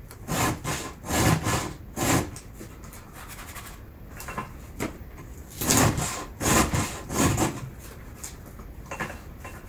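Hand file scraping across the cutters of a chainsaw chain as it is sharpened, a rasping stroke on each push. The strokes come in two runs of about three, with a pause and a few lighter strokes between.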